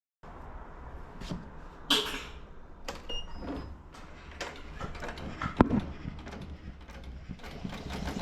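Irregular clicks, knocks and scrapes of objects being handled, with one sharp knock about five and a half seconds in.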